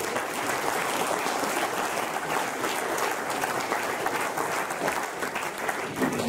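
Audience applauding: many hands clapping in a steady, dense patter that eases off near the end.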